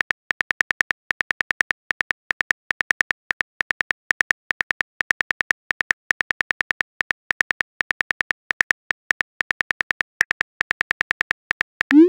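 Phone keyboard typing sound effect from a texting-story app: a fast, uneven run of short, bright key clicks, about five or six a second. Right at the end a rising whoosh begins as the message is sent.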